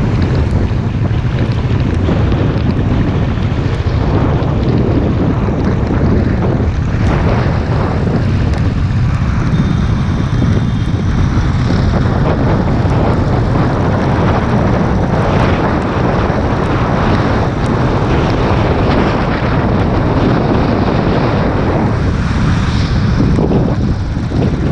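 Steady wind noise on the microphone of a moving Royal Enfield Classic 500, with the bike's single-cylinder engine running underneath and tyres on a wet road.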